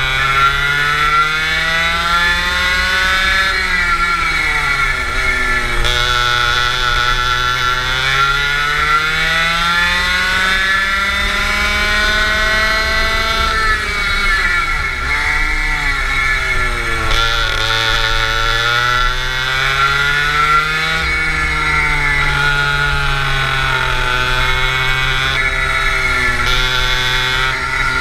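Go-kart engine heard onboard, running hard and repeatedly rising and falling in pitch: it climbs along the straights and drops as the kart slows for corners. One long climb in the middle ends in a sharp drop.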